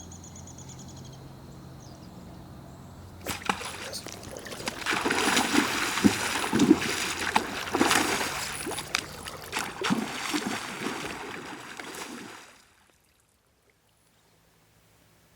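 Water splashing hard and repeatedly, starting about three seconds in and cutting off abruptly near the end.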